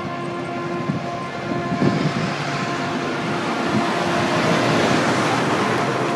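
A steady droning hum with several overtones, under a rushing noise that swells up about two seconds in and peaks near the end.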